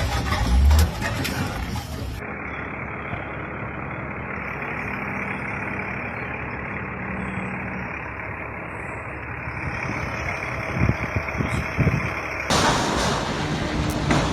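A vehicle engine running under steady outdoor noise, with a brief loud low thump about half a second in. The sound changes abruptly about two seconds in and again near the end.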